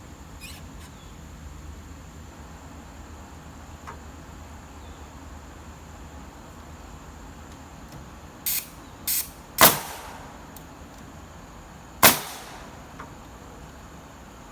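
Two loud, sharp knocks about two and a half seconds apart, each with a short ringing tail, the first led by two brief hissy bursts.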